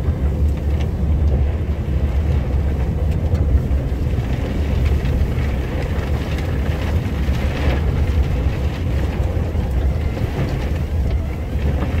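A 600-horsepower snowplow truck's engine running hard under load, a steady low drone heard from inside the cab, as the front plow pushes through drifted snow. A rushing hiss of snow and wind swells past the middle.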